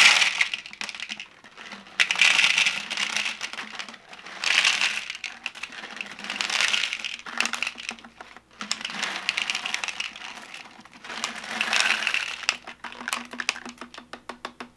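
Mike and Ike candies poured from their boxes into a 3D-printed plastic globe, clattering in a run of pours a second or two long each, with the last few candies ticking in one by one near the end.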